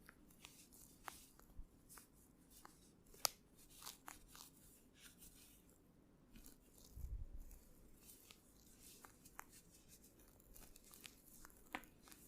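Quiet hand massage: faint rubbing of hands on skin with scattered light clicks and taps, one sharper click about three seconds in and a dull bump about seven seconds in.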